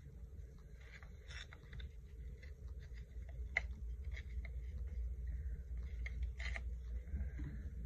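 Faint, scattered clicks and rustles of paper scraps and a glue stick being handled on a craft table, over a low steady rumble.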